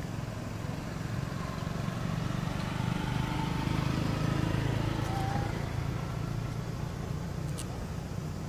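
A motor vehicle driving past on the road, its low engine rumble swelling to its loudest about four seconds in and then fading.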